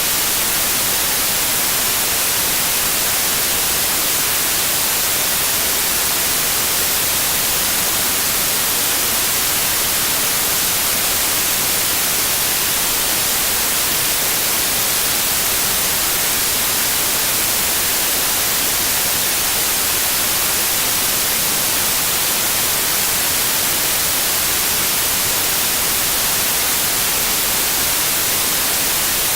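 Steady synthetic white noise: a constant, even hiss, brightest in the highs, with no change or events.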